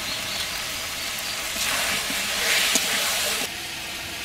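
Marinated chicken pieces sizzling as they fry in a metal pan while being stirred with a spatula. The sizzle grows louder partway through and cuts off suddenly about three and a half seconds in.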